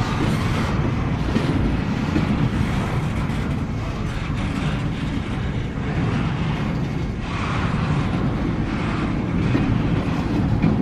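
Norfolk Southern train NS 21T's cars rolling past on the mainline: a loud, steady noise of wheels on rail with no break.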